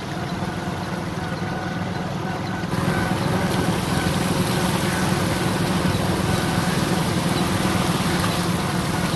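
A vehicle engine running steadily, with a rushing hiss of moving water that grows louder about three seconds in.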